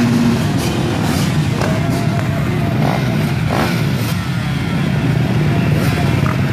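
A row of motocross bikes running together at the start line, with throttles blipped now and then so the pitch rises and falls.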